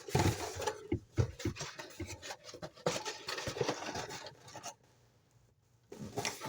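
Paper, card and packaging being rummaged through by hand: irregular rustling, scraping and small clicks that stop about five seconds in and start again briefly near the end.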